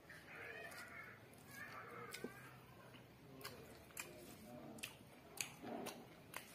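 Faint close-up eating sounds: chewing with wet mouth clicks, and soft squishing as fingers knead rice and chicken curry on a banana leaf. Sharp clicks come about once a second through the second half.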